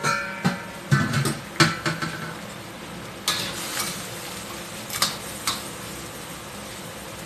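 Metal spatula clanking and scraping against a stainless steel wok while crab pieces are stir-fried, over a steady sizzle. Several ringing clanks come in the first two seconds, then a few more scrapes between about three and five and a half seconds in.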